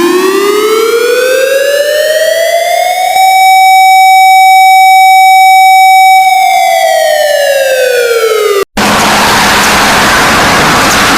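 An electronic wailing siren with a buzzy tone, in the style of an emergency-alert or air-raid siren. It rises in pitch for about three seconds, holds a steady high note for about three seconds, then falls. About two-thirds of the way through it cuts off abruptly into loud hissing static.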